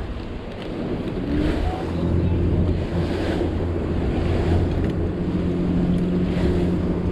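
Boat engine running steadily at low speed, a low hum with wind buffeting the microphone and water washing around the boat.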